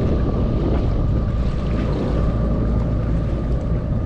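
Jet ski engine running steadily with a constant hum, under wind buffeting the microphone.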